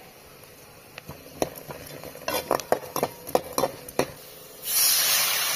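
A metal spatula stirring and scraping grated carrot, onion and cashews in the hot oil of a hammered aluminium kadai, a run of sharp clicks against the pan. About four and a half seconds in, a loud steady hiss starts: water poured into the hot pan, sizzling on the oil.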